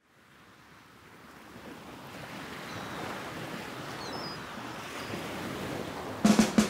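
Ocean surf washing, an even hiss of waves fading in steadily from very faint. About six seconds in, loud music cuts in with a strong beat.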